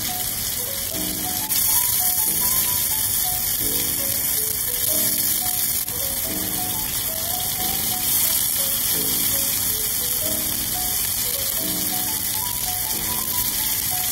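Beef steaks frying in butter in a pan, a steady loud sizzle that gets louder about a second and a half in. Background music of short notes stepping upward in a repeating figure plays over it.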